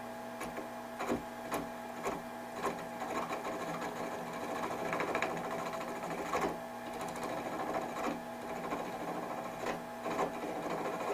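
Rikon 70-100 mini wood lathe running, its half-horsepower motor humming steadily while a knife blade held on the tool rest scrapes at the spinning branch. Irregular sharp clicks break through the cutting noise.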